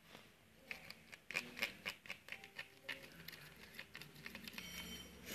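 Short bamboo skewer clicking and scraping against a small container while stirring a sticky slime mixture: faint, irregular quick taps, busiest in the first half and thinning out later.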